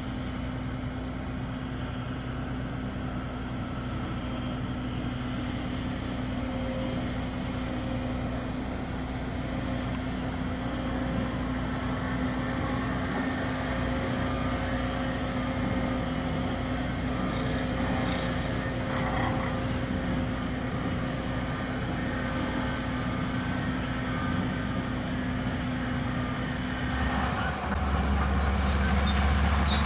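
Heavy diesel construction machinery running with a steady engine note. Near the end the sound turns louder and deeper, with metallic clatter and squeal on top.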